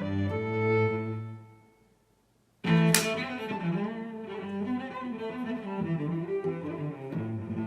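Background music led by cello and double bass. It fades out about two seconds in and, after a short silence, starts again abruptly with a sharp click near the three-second mark.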